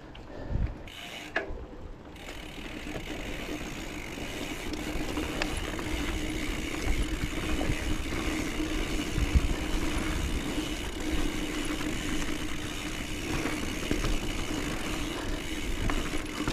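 Mountain bike rolling along a dirt trail: tyre and trail noise with small rattles and clicks, and a steady buzz that builds over the first few seconds as the bike picks up speed, then holds.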